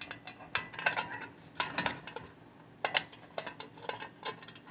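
Irregular light metallic clinks and rattles of steel concrete anchors being handled and pushed through the holes of a stainless steel bowl mount.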